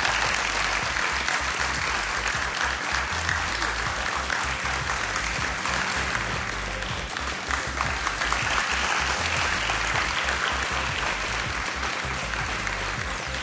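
Studio audience applauding steadily, with many hands clapping at once.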